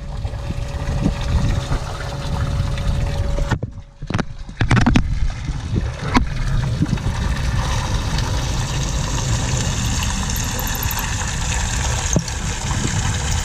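Water sloshing and trickling, over a heavy low rumble. The sound drops out briefly about four seconds in, and a few sharp knocks follow.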